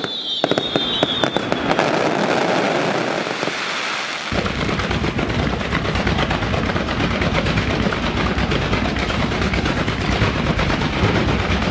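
Aerial fireworks display: a dense, rapid stream of crackling reports, with a falling whistle in the first two seconds. About four seconds in, a heavier, deeper barrage of bangs joins and keeps going.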